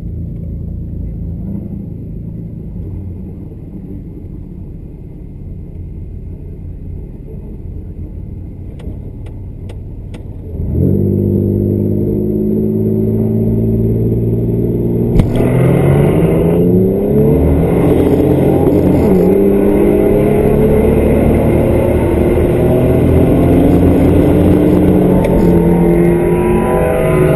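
Drag-race car engines running at a steady idle while staged. About 11 seconds in they launch hard, revving up through the gears with a drop in pitch at each shift, and there is a sharp crack about 15 seconds in.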